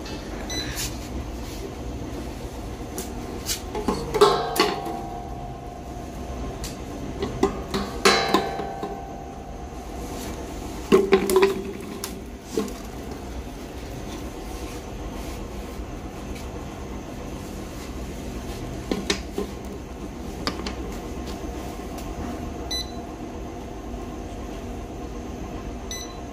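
Small automatic bottle batch-coding (MRP printing) machine running with a steady hum. Several sharp clanks that ring briefly break through it, the loudest about 4, 8 and 11 seconds in and a lighter one near 19 seconds.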